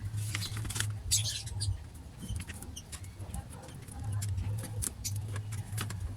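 Scattered small clicks, scrapes and rustles of hands handling wiring, tape and parts inside a car door panel, over a low hum that drops out in the middle and returns about four seconds in.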